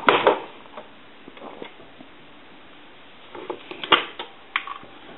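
Sharp plastic clicks and knocks from handling a Crosley 302 retro desk telephone on the bench, a cluster right at the start and another about four seconds in. A faint steady tone comes in near the end.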